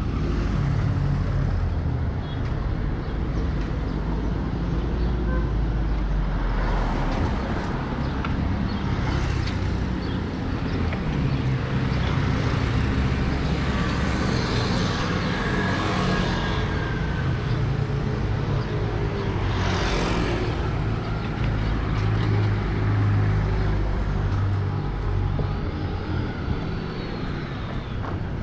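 Street traffic: motor scooters and cars running along the road, a steady engine hum with several vehicles passing close, the loudest pass about two-thirds of the way in.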